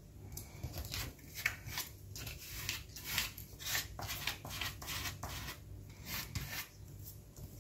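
Paper rustling and rubbing in quick, irregular strokes as a cut-out paper flower is pressed and smoothed down by hand onto a book-page pocket.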